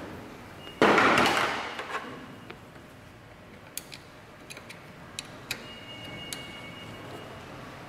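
Metal parts of a wheel-balancer motorcycle adapter being handled and fitted: a loud rush of scraping noise lasting about a second, then a few sharp, separate metal clicks and taps.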